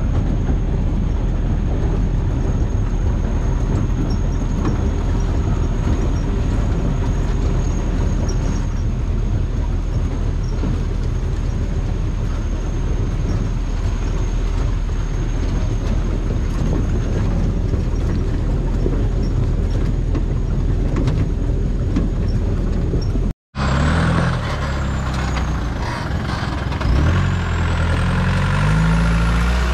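Old open-top Mahindra jeep driving a rough trail, with a steady engine and drive rumble. After a sudden cut near the end, its engine revs up and down as it crawls over loose rocks.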